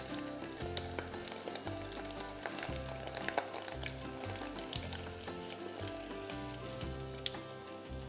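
Noodle-coated prawns sizzling and crackling in hot oil in a stainless saucepan, with small clicks as a metal skimmer stirs them in the pot. Quiet background music plays underneath.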